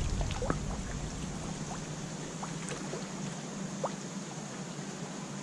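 Steady wash of flowing river water, with a few faint short ticks.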